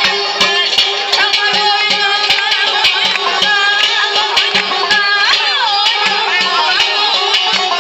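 Traditional folk music: an ornamented melody that bends and slides in pitch, over a steady drum beat and a low held note.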